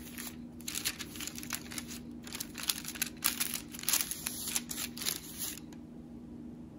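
Baking parchment rustling and crinkling as hands lay a raw scallion pancake on it and smooth the sheet, in a run of irregular crackles that dies away about a second before the end.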